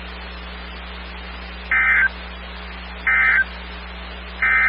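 NOAA Weather Radio SAME end-of-message data bursts: three short, identical digital bursts at even spacing over steady radio hiss and a low hum, closing a weekly test broadcast.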